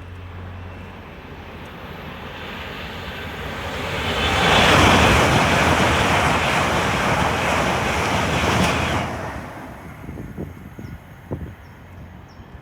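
A fast passenger train passing at speed: a rushing roar that builds over a few seconds, holds loud for about four seconds, then fades away quickly.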